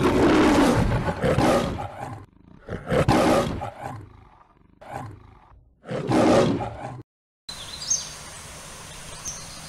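The MGM lion's roar sound effect: four roars, the first two longest and loudest, the last ending about seven seconds in. Then a steady outdoor hiss with a few short high chirps.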